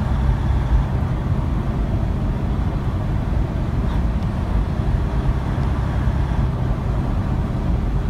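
Semi-truck cab noise at highway speed: a steady, low engine and road drone.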